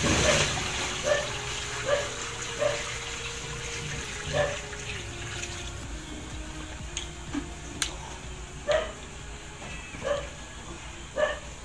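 Water poured from a bucket into a hot wok of eggs, a short rush and hiss about the first half-second. A dog barks every second or so, over soft background music.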